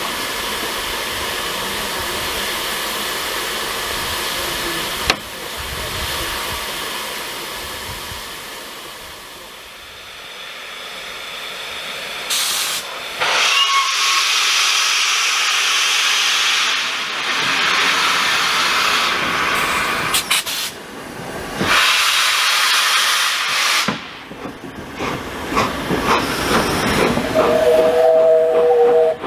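Steam locomotive 60163 Tornado, an LNER Peppercorn A1 Pacific, hissing steam: steadily at first, then in loud gusts. Near the end its whistle sounds as the engine comes by.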